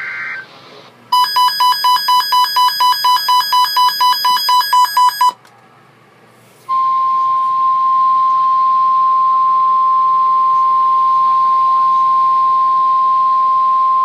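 NOAA weather alert radio sounding an alert: rapid electronic beeping at about four beeps a second for some four seconds, then after a short pause the steady 1050 Hz NOAA Weather Radio warning alarm tone, one unbroken pitch held for about seven seconds, which signals that a warning broadcast is about to follow.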